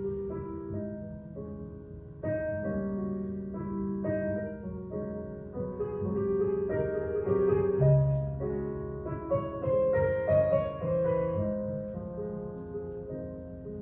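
Jazz-style piano music for ballet class, with sustained chords and a melody changing about every second.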